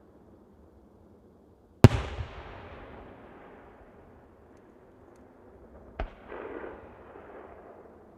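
Aerial fireworks shells bursting. A loud bang about two seconds in rolls on as an echo that fades over a couple of seconds. A second, sharper bang near six seconds is followed by a brief rushing noise.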